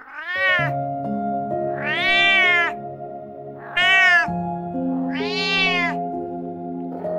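A cat meowing four times, each meow rising and then falling in pitch, over soft background music with long held notes.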